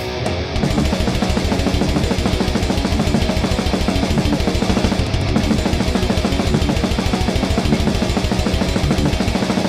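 Distorted electric guitar tuned to D standard playing a fast grindcore riff with a rapid, even picking rhythm over a drum backing track; it gets louder and denser about half a second in.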